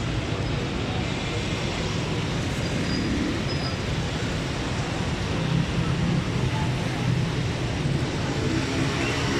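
Steady road traffic noise with a low engine rumble, with no single vehicle standing out.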